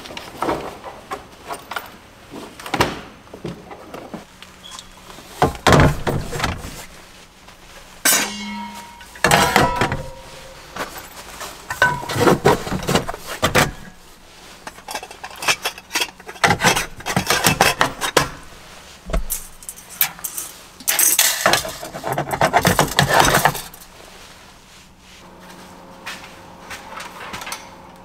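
Camping gear being handled and packed: small hard items clinking, rattling and knocking in irregular bursts a few seconds apart as they are set into a plastic storage tray and taken from shelves.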